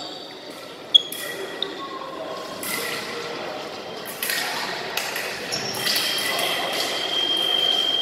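Foil fencing bout on a metal piste in a large echoing hall: a sharp click about a second in, then footwork scuffs and shoe squeaks. From about six seconds a steady high electronic tone sounds, an electric scoring box signalling a touch.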